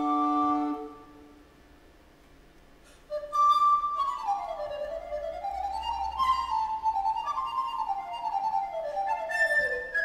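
Recorders in a quartet hold a chord that ends about a second in. After a short quiet pause, a single recorder starts a fast running line of notes climbing and falling.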